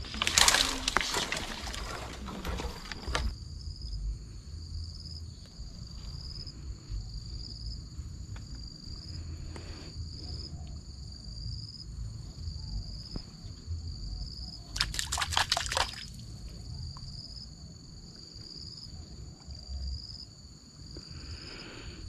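A steady high insect buzz, pulsing a little more than once a second, over a low wind rumble. A loud burst of noise fills the first three seconds, and a shorter one comes about fifteen seconds in.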